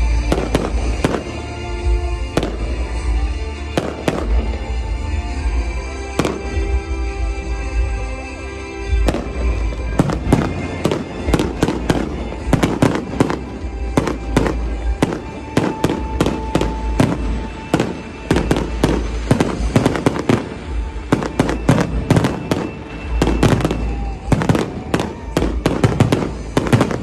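Fireworks display: aerial shells bursting in a quick run of bangs and crackles, growing much denser about nine seconds in, with music playing underneath.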